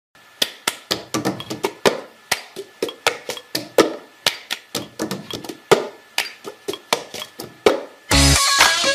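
An irregular run of sharp clicks or taps, about four a second. Music with a heavy bass beat starts near the end.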